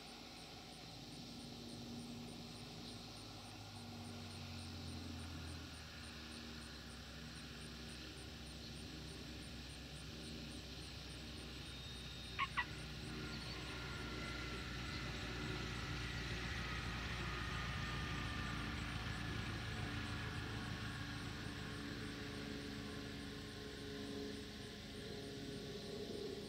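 Cessna 172's piston engine and propeller at low landing power, a steady low drone that grows louder as the plane comes in over the runway and rolls past. About twelve seconds in, two sharp clicks in quick succession stand out as the loudest sound.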